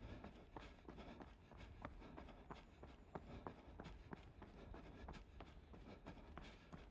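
Faint footsteps of a runner at a steady pace, about three strides a second, over a low rumble.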